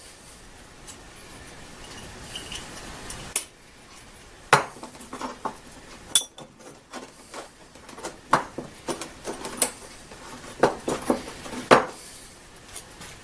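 Irregular light clinks and taps of small metal parts as a rivet blank is handled and pushed through the hole in the workpiece.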